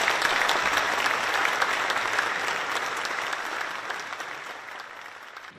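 Audience applauding, fading gradually before cutting off near the end.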